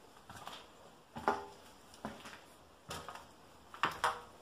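Footsteps crunching on grit and debris on the floor of a gutted railway carriage, about one step a second. A couple of the steps have a brief ringing note after them.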